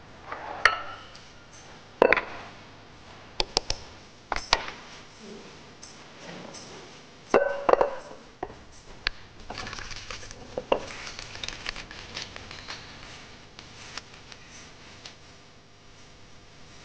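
Cookware being handled on a kitchen counter: a pot, its lid and utensils clinking and knocking. Single knocks come in the first few seconds, a cluster follows about seven to eight seconds in, then a few lighter clinks.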